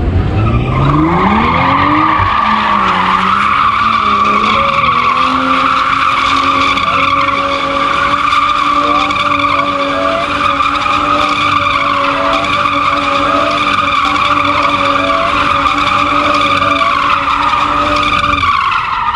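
BMW saloon doing donuts with its rear tyres spinning and squealing. The engine revs up over the first two seconds, then holds high revs under a loud, continuous tyre squeal. Both stop abruptly just before the end.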